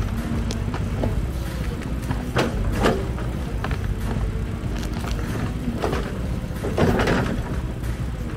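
Diesel engine of heavy machinery running steadily while pulling tree stumps, with several sharp knocks and clanks from the work.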